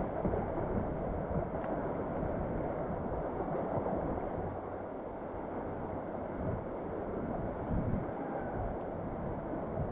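Steady rush of whitewater river current, with occasional low buffeting of wind on the microphone.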